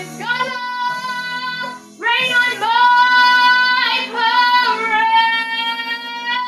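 A young singer's voice sings a short phrase, breaks briefly about two seconds in, then sings one long held note over a backing track.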